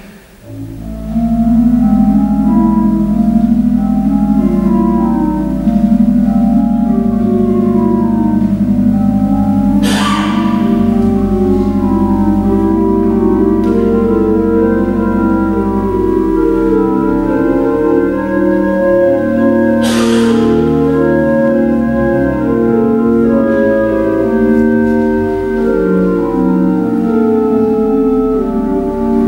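Pipe organ built by Jurine in 2016 playing an improvisation: held low pedal notes under chords and lines that keep moving in the middle and upper range, coming in about a second in. Two brief clicks about ten seconds apart stand out over the music.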